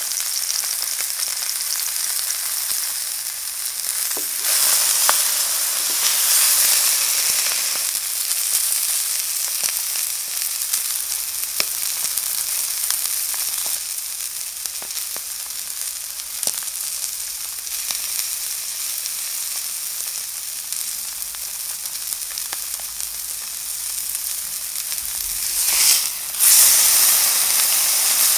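Grass-fed Angus beef steak searing in a hot enamelled cast-iron pan: a steady fat sizzle with scattered crackles and pops. It swells briefly louder near the end.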